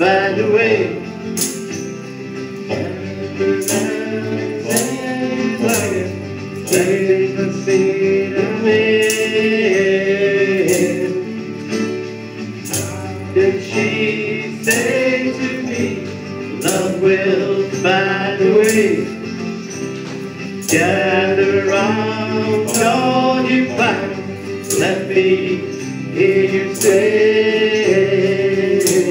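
Small live band playing a song: male vocals over electric guitar, with a tambourine struck in a steady beat about once a second.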